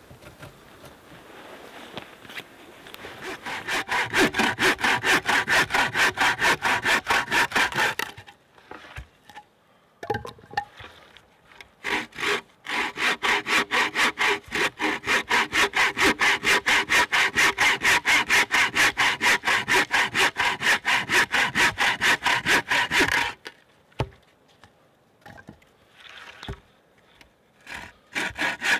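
Frame saw cutting through a log in fast, even back-and-forth strokes. A run of about five seconds is followed by a short pause, then a longer run of about eleven seconds, and sawing starts again near the end.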